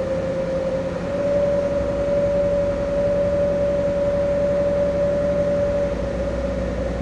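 The twin inboard engines of a 50 ft trawler yacht running under way: a steady drone with a whine that rises and grows louder about a second in, then eases back near the end as the throttles are worked.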